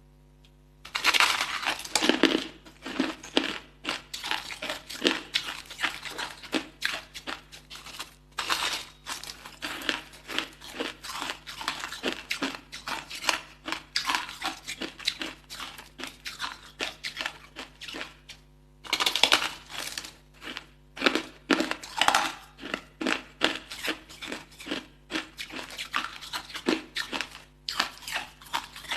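Hard ice being bitten and chewed close to the microphone: a dense run of sharp, crackling crunches, with heavier bites about a second in, about a third of the way through and about two-thirds through.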